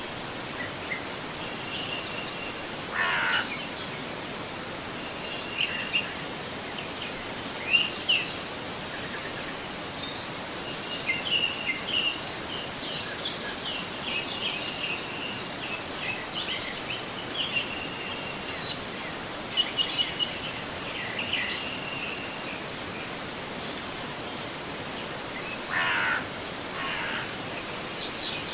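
Steady rush of a forest river flowing, with songbirds chirping and calling on and off over it, and two longer, harsher bird calls, one about three seconds in and one near the end.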